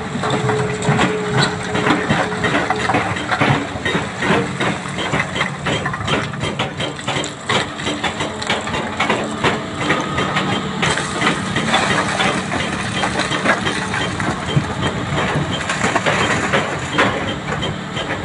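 Large Hitachi crawler excavator's diesel engine running steadily under load while its bucket digs and crunches through loose broken rock, with many knocks and clatters of stone throughout. Near the end the bucket is tipping rock into a steel dump-truck bed.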